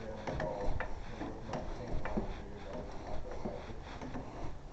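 Scattered metal clicks and knocks from a lug wrench working the wheel's lug bolts.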